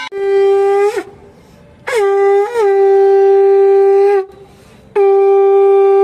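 Conch shell (shankha) blown in three long, loud blasts on one steady note. Each blast flips upward in pitch as it ends, and the middle one, the longest, has a short wobble just after it starts.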